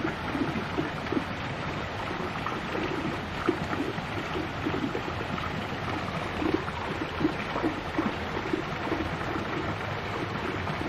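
Steady running water with irregular low gurgles.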